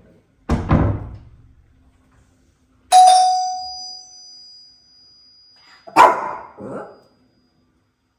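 A door shuts with a heavy thump, then a single doorbell chime rings and fades out; about three seconds later a Shih Tzu barks twice.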